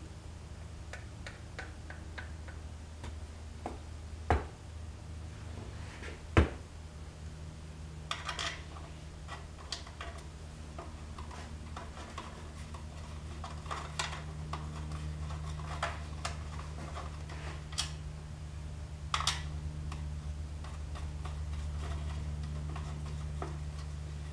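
Metal engine parts and tools handled on a workbench: scattered clicks and clinks, with two sharper knocks about four and six seconds in, over a steady low hum.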